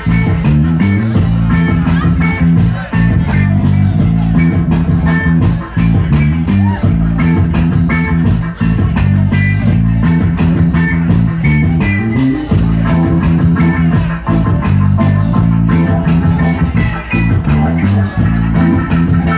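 Band music with guitar and a prominent bass guitar line over a steady beat.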